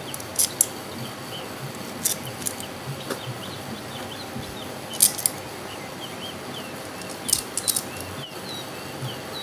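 Sharp metallic clicks and taps in a few small clusters as a desk fan's motor housing and its screws are handled while the housing bolts are being fitted. Faint bird chirps throughout.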